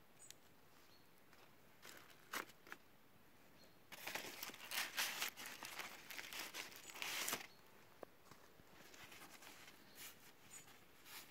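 Crinkling, rustling handling noise for about three and a half seconds, starting about four seconds in, with a few scattered light clicks and taps before and after it.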